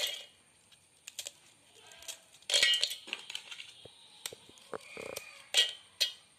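Hands breaking Oreo biscuits and dropping the pieces into a stainless-steel mixer-grinder jar: scattered cracks and light clicks, with louder bursts about two and a half and five and a half seconds in.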